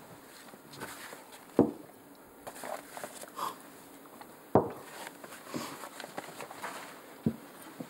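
Tableware at a meal: three sharp, dull knocks about three seconds apart, like drinking glasses being set down on a cloth-covered table, with fainter small clinks and handling sounds between them.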